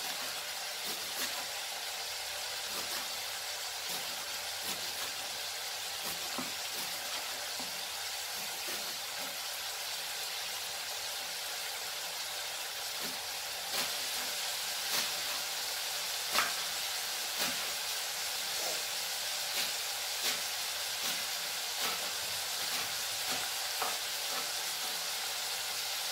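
Sliced onion, tomato and green chillies frying in oil in a kadai: a steady sizzle with occasional sharp crackles, which come more often about halfway through.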